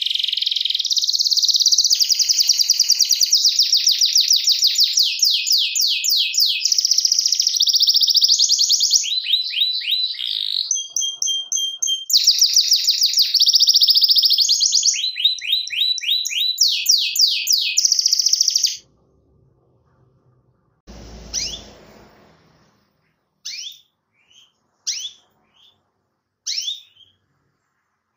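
Domestic canary singing a long, loud song of rapid trills, switching from one trill speed and pitch to another every second or two, for about eighteen seconds. After a pause comes a short low rustling noise, then a handful of short single chirps about a second apart.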